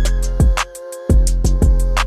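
Background music with a steady beat: deep bass notes, kick drum and quick, evenly spaced hi-hat ticks.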